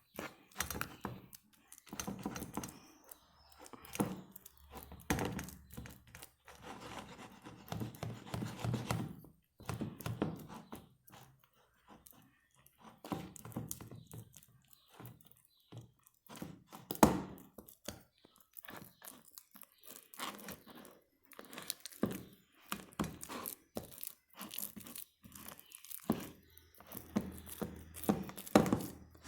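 Homemade dish-soap slime handled by hand: irregular sticky crackling and tearing sounds with occasional soft thunks.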